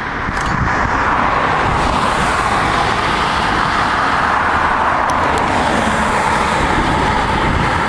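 Car on the move: a steady rush of tyre and road noise, growing a little louder about half a second in.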